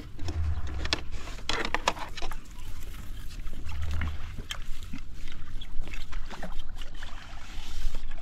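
A hooked fish, about 600–700 g, splashing at the water's surface as it is played on a pole rod and drawn toward a landing net. The splashes come as irregular sharp strokes.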